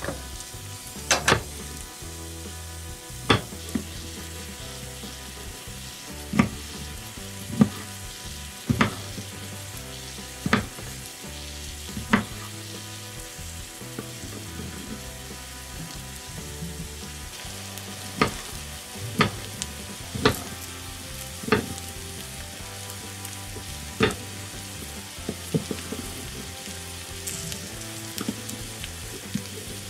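Chopped onions sweating in oil in a miniature pan, giving a steady sizzle. Sharp, irregular taps sound every second or two as a small utensil stirs in the pan.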